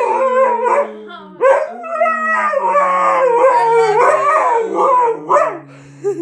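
Husky mix dog "talking": a long, wavering howl whose pitch slides up and down, as if trying to say "I love you". It breaks briefly about a second in and ends with a couple of short calls.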